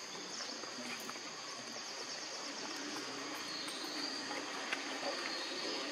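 Steady high-pitched insect chorus drone, with a few faint clicks underneath.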